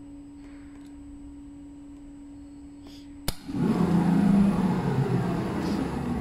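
Large CNC upholstery sewing machine: a steady electrical hum, then a sharp click about three seconds in, after which the machine runs loudly with its sewing head stitching leather for about three seconds.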